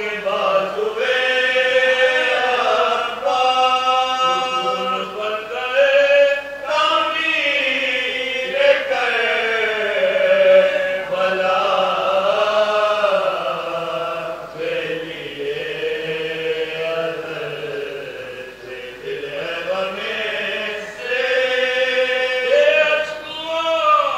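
Men reciting a marsiya, the Urdu elegy for Imam Hussain, in unaccompanied group chant: long melodic phrases that bend up and down in pitch.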